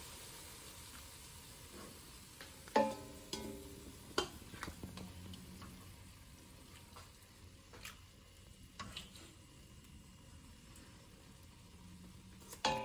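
Serving spoon knocking against a stainless steel cooking pot while gravy and chicken are spooned onto the rice, a few scattered knocks with the loudest about three seconds in and again at the end, the pot ringing briefly after them. A faint hiss lies underneath.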